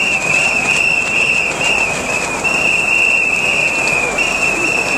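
A steady, shrill whistle-like tone held with only brief breaks, over the general murmur of a crowd.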